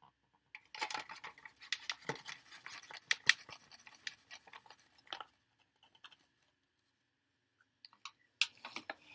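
Clear plastic takeout container being handled: a dense run of crinkling and clicking for about four and a half seconds, then a few sharper clicks near the end.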